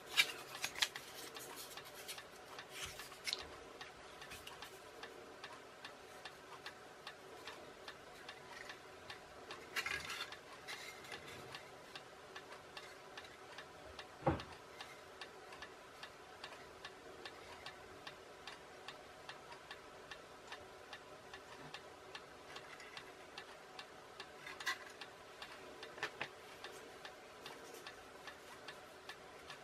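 Faint, steady ticking with a few louder clicks and one knock about halfway through, from a foam-plate model plane and small tools being handled on a workbench.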